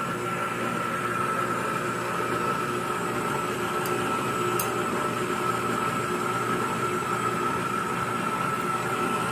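Electric mixer motor running steadily with an even hum, beating cake batter.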